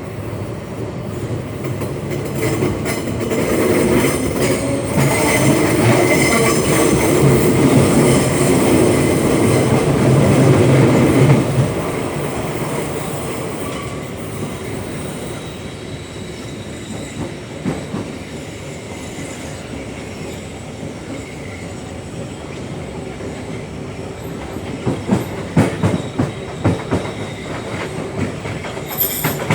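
Inside a car of a class 472 electric S-Bahn train running, with wheel squeal and a low hum swelling to their loudest for several seconds, then dropping away. Near the end comes a run of sharp clacks from the wheels over rail joints.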